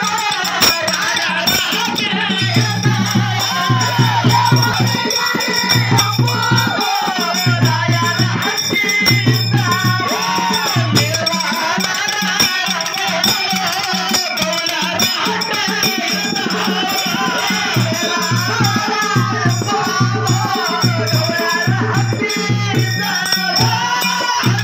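Live folk music: a melody sung over fast, rattling, jingling percussion with a repeated low note underneath.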